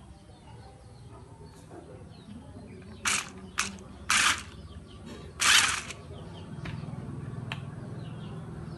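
Mecanum-wheeled toy RC stunt car driving on a woven plastic mat: four short hissing scrapes between about three and six seconds in, then a steady low hum of its electric motors.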